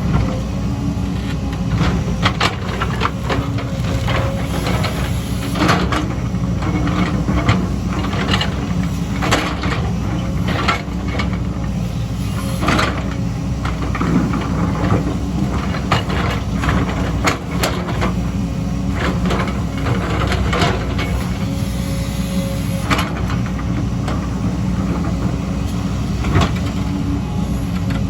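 Engine of a heavy earthmoving machine running steadily under load, with irregular sharp clanks and knocks of its working gear.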